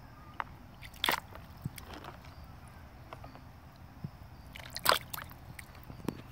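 Water sloshing and splashing in a shallow plastic tub as a hand swishes a small toy pony through it, with a few short sharp splashes, the loudest about a second in and about five seconds in.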